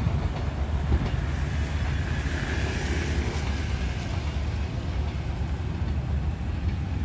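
Passenger train moving away along the track with a steady low rumble, mixed with motorbike traffic starting to cross the level crossing.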